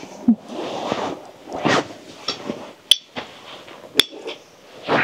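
Tableware being handled while eating: irregular scraping and rustling, with two sharp clinks about three and four seconds in.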